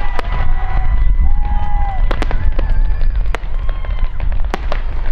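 Fireworks display: aerial shells bursting in sharp bangs, about six in five seconds, over a continuous low rumble. Long, steady whistle-like tones sound above the bangs.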